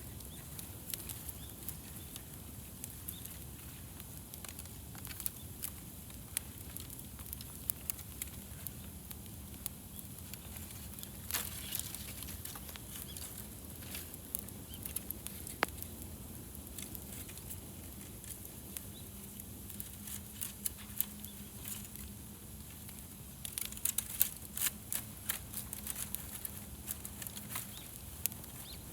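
Wood fire crackling, with scattered sharp snaps and pops over a soft steady hiss, the pops coming thicker near the end.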